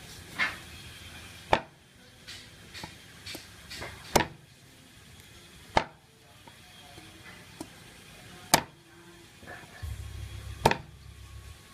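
Heavy cleaver chopping raw meat on a thick round wooden chopping block: six sharp single chops spaced a second or two apart, with lighter knocks of the blade between them. A low hum rises briefly near the end.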